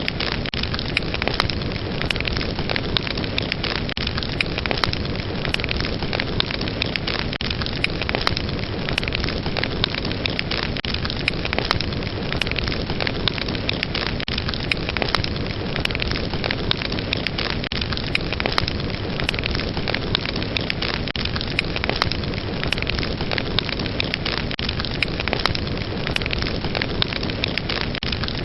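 Fire burning in a fireplace: a steady rushing hiss with dense, constant crackling pops.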